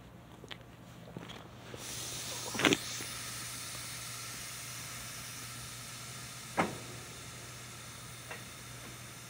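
Freight train of tank cars coming to a stop, its air brakes hissing steadily from about two seconds in. Two loud, short metallic noises from the cars' running gear come about a second into the hiss and again a few seconds later, with a fainter one near the end.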